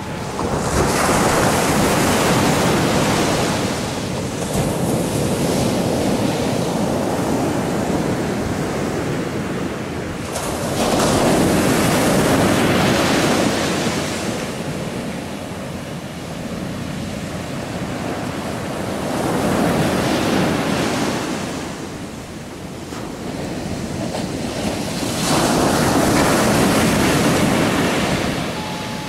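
Ocean surf: waves breaking and washing ashore in slow surges that build and fade over several seconds, about five in a row.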